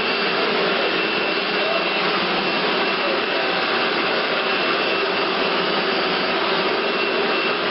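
Household vacuum cleaner running steadily: a constant rushing motor-and-airflow noise with a faint, steady high whine.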